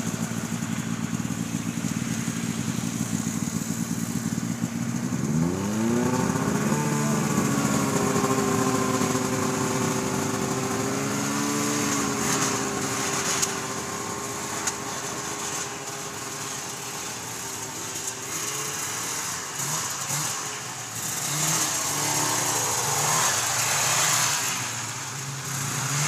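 Snowmobile engine idling, then revving up about five seconds in as the sled pulls away, and holding a steady pitch. It then fades and wavers as the sled rides off, swelling again near the end.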